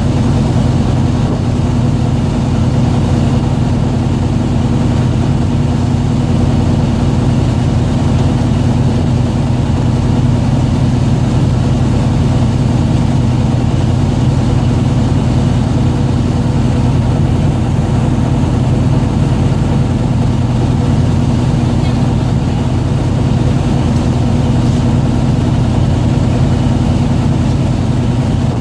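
A fishing boat's engine running steadily, a low, even hum that does not change.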